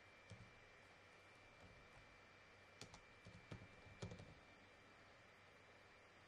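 Faint computer keyboard typing: a few scattered keystrokes, most of them bunched together about three to four seconds in.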